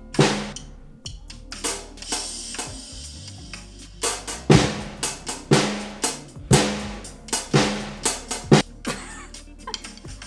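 A PDP acoustic drum kit played slowly by a beginner: a basic beat of bass drum, snare and hi-hat strokes spaced about half a second to a second apart, with the bass drum on 1 and the 'and' of 3.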